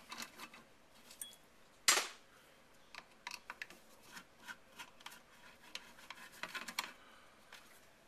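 Light metallic clicks and taps from a screwdriver and hands working on the metal casing of an old Apple floppy disk drive, with one sharper knock about two seconds in.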